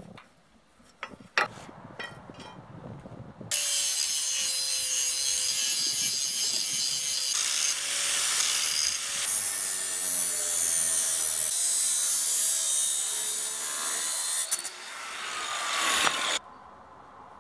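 A few sharp metal clanks, then an angle grinder cutting through a rusty steel bar: a loud, steady grinding hiss with the motor's whine under load for about thirteen seconds, stopping abruptly near the end.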